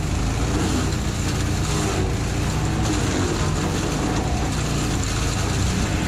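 Small petrol-engined garden wood chipper running steadily with an even engine hum while it shreds branches.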